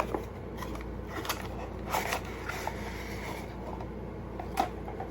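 Packaging being handled and opened: a few short crinkles and taps, the sharpest a little before the end, over a steady low room hum.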